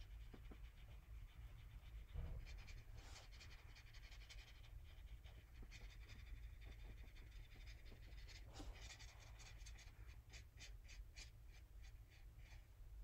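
Soft brush strokes of a watercolor paintbrush on paper, with a run of quick short strokes, about three a second, in the second half. A steady low hum lies underneath.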